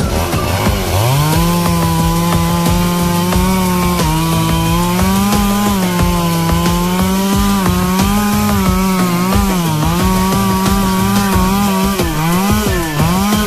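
Two-stroke chainsaw revving up about a second in, then held at high speed while cutting melaleuca wood. Its pitch sags and recovers under load, with quick drops and rises in revs near the end.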